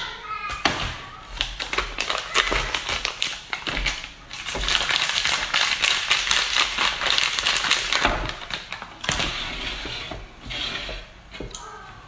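Plastic food packaging crinkling and crackling as a bag of pickled bamboo shoots is handled and pulled open. The crackling is densest in the middle and fades toward the end.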